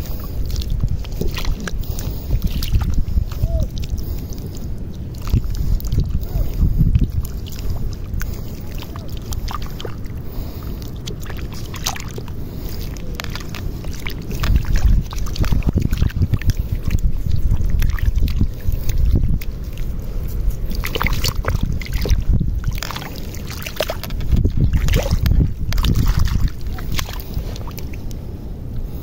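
Shallow seawater sloshing and splashing as a bare hand digs through the wet sandy bottom for clams, with irregular surges of splashing over a low rumble.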